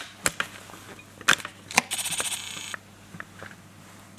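A few light clicks and taps, then a short buzzing whirr from a camera's zoom lens motor about two seconds in, lasting under a second.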